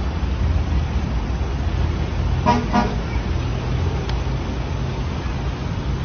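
Traffic moving through a flooded street: a steady low rumble of engines, with a vehicle horn honking twice in quick succession about two and a half seconds in.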